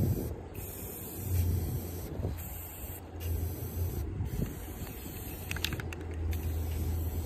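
Aerosol spray paint cans hissing in repeated bursts of a second or two, with short pauses between, as paint is sprayed onto the water surface for hydro dipping.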